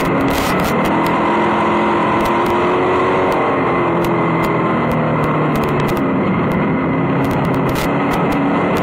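Vintage dirt-track race car's engine heard from inside the cockpit at racing speed, its pitch rising and falling as the throttle comes on and off through the laps. Frequent sharp clicks sound over it.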